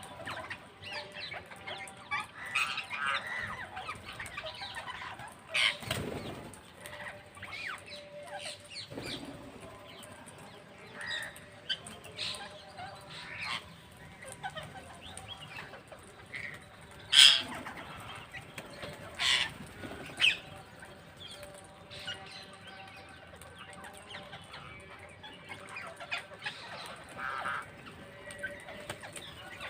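Parrots calling: scattered chattering and short sharp screeches throughout, with a few loud shrieks, the loudest about halfway through.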